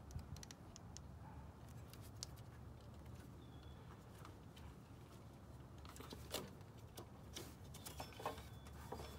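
Faint clicks and taps of a steel combination wrench on the serpentine-belt auto-tensioner bolt as the belt is worked free, a few sharper clicks near the end, over a low steady hum.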